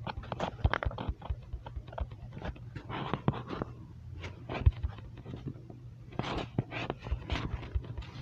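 A fox chewing and crunching on fish: irregular crunches and clicks, in quick bunches.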